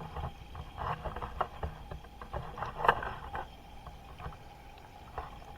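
Water splashing and gurgling in an aquarium tank holding a giant octopus: irregular small splashes and knocks, the loudest about three seconds in, settling to a steady hum near the end. The uploader presents it as the octopus breathing.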